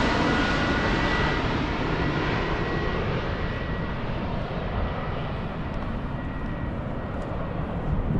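Engines of an airliner on landing approach passing overhead: a loud, steady rush with a faint high whine, slowly fading and dulling as the aircraft moves away.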